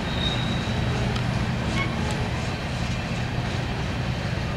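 Loaded freight rock train rolling past at a railroad crossing: a steady low rumble that holds even throughout.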